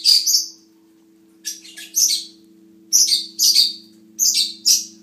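Small pet parrots chirping: short, high chirps in clusters of two or three, about one cluster a second, over a faint, steady low hum.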